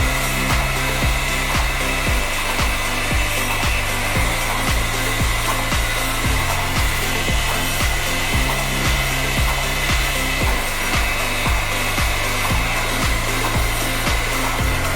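Background music with a steady beat of about two strokes a second and a bass line that changes note every couple of seconds, over a steady high-pitched whine.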